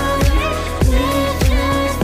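Background music: a pop song with a steady beat, a little under two beats a second.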